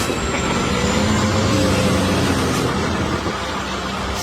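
Heavy truck engine running steadily under load, with a dense rumble and road or machinery noise.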